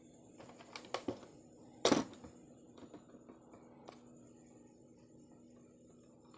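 Small plastic parts of a pocket drone and its battery tray being handled, giving several sharp clicks and taps, with the loudest clatter about two seconds in and a few lighter ticks after it. A faint steady hum runs underneath.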